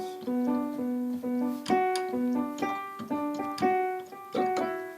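Background piano music: a simple melody of separate sustained notes.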